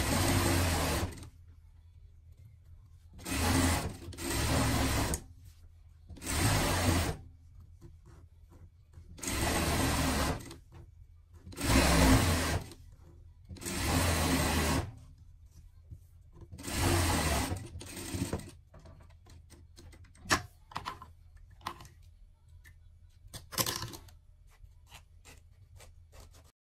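Industrial straight-stitch sewing machine running a gathering stitch along a strip of fabric, in several short bursts of about a second each with pauses between as the fabric is guided. A few light clicks fall in the quieter stretch near the end.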